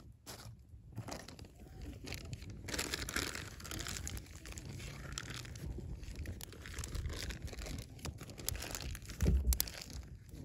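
Paper and kindling under a pile of firewood catching alight and crackling, a dense stream of small crackles over a low rumble. A single low thump about nine seconds in is the loudest sound.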